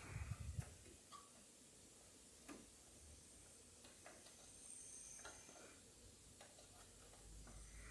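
Faint, irregular small clicks and taps of hands working at a desktop computer's memory slots, with a low thump right at the start.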